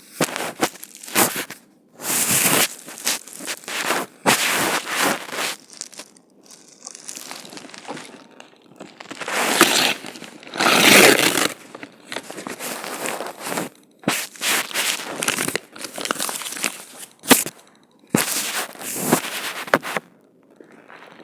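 Packaging rustling and crinkling in irregular bursts as a parcel of new clothes is handled and opened, with a few sharp crackles.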